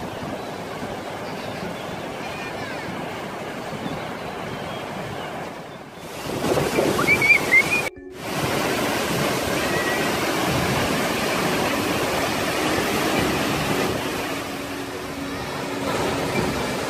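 Steady rushing of falling water from a waterfall. It swells louder for a couple of seconds and breaks off for an instant about eight seconds in, then carries on evenly.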